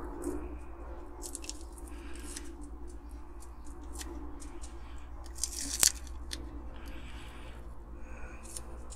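Masking tape being peeled and crumpled off a painted diecast model body by hand: a run of crackles and crinkles, with one louder snap about six seconds in.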